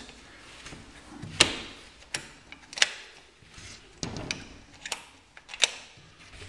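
Metal door lever handle and lock being worked, giving a series of sharp clicks and clacks at uneven intervals, the loudest about a second and a half in.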